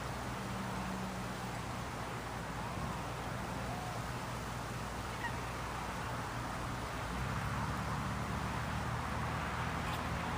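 Honeybees buzzing around an open hive, a steady low hum that grows louder about seven seconds in, over a background hiss.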